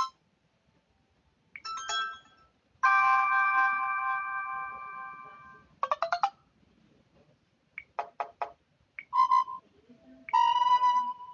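A run of short Samsung Galaxy Pocket notification tones played one after another: brief electronic chimes and quick blips with short pauses between them. One of them is a chord that rings for about three seconds and fades.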